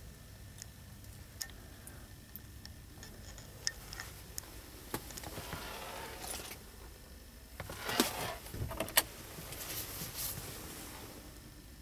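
Light handling noise in a van cab: scattered small clicks and rustling over a faint low hum, with two sharper clicks about eight and nine seconds in.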